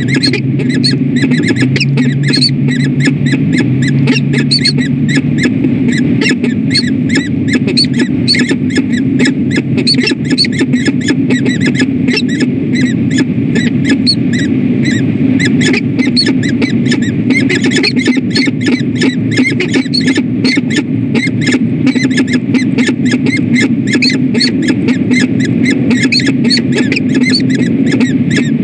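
A pair of falcons calling together in the nest scrape: a rapid, unbroken run of short high chirping calls, several a second, typical of a bonding pair. Under it is a steady electrical hum from the nest-camera audio.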